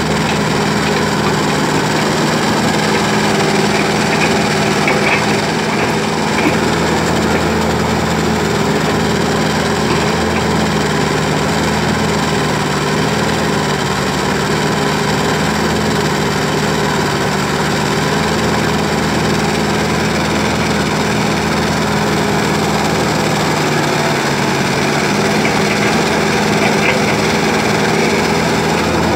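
Diesel engine of an old hydraulic excavator running steadily under working load, with a few faint clicks about five seconds in and again near the end.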